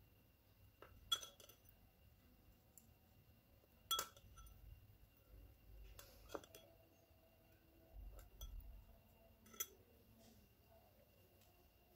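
Metal teaspoon clinking against a small glass bowl while scooping sprinkles: four sharp clinks, about a second in, at four seconds, at six seconds and near nine and a half seconds, with a few lighter ticks between.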